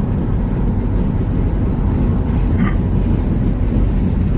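Volkswagen T4 Transporter van cruising in fifth gear: a steady engine and road rumble with no let-up. A short, high chirp sounds once a little past halfway.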